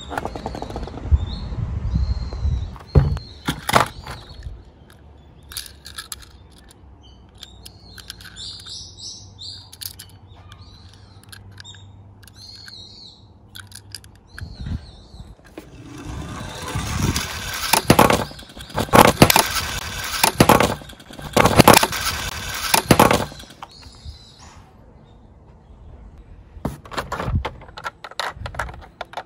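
Small die-cast toy cars rolling and clattering down a toy slope, with scattered sharp clicks, a few short high chirps, and a stretch of loud rattling past the middle.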